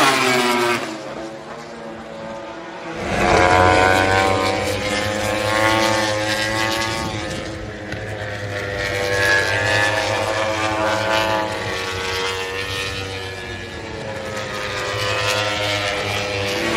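MotoGP racing motorcycles passing at speed, their high-revving engine notes rising and falling in pitch through the gears. It goes quieter about a second in, and a loud pass starts about three seconds in.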